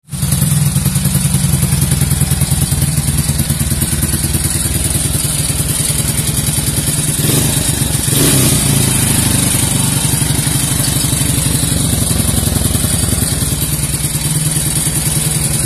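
Honda EX5 Dream's single-cylinder four-stroke engine, modified to 56 mm spec, running through an aftermarket exhaust with a steady pulsing idle. The engine note rises briefly once about eight seconds in before settling back to idle.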